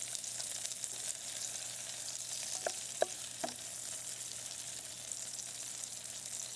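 Potatoes and calabresa sausage sizzling as they fry in a pan, a steady hiss, with three brief short sounds about halfway through.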